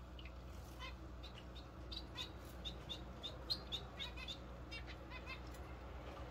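Small birds chirping repeatedly in short, high, irregular chirps over a steady low hum.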